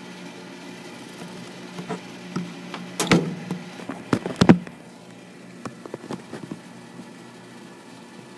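A few sharp knocks and clatters of handling noise as the camera is moved at the terrarium, about three seconds in and again around four to four and a half seconds. A steady low hum runs underneath.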